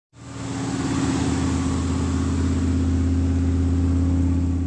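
A vehicle engine running steadily at idle, fading in quickly at the start.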